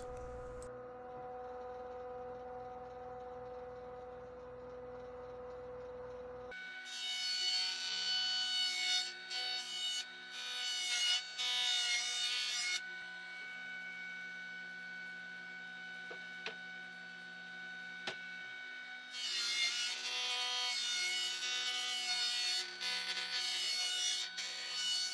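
Six-inch jointer running, its cutterhead planing a long rough-cut larch timber in two passes. A steady motor hum runs throughout, and a louder, rougher cutting noise comes about a quarter of the way in and again in the last quarter.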